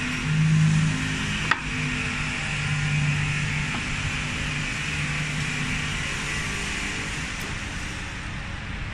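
Woodworking machinery running with a steady, even hum that swells and eases a little, and a single sharp click about one and a half seconds in.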